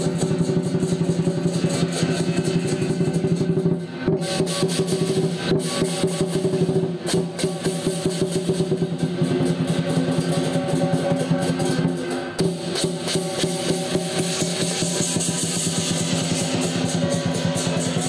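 Music with fast, dense drumming over held low notes; the notes change about four seconds in and again near twelve seconds.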